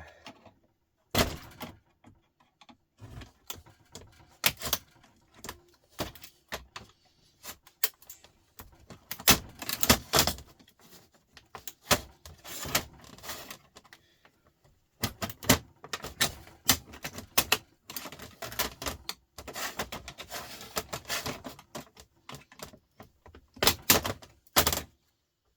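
Irregular clicking, tapping and clattering of small metal and plastic parts being handled and taken apart, as in dismantling a DVD drive mechanism by hand, with a few brief pauses.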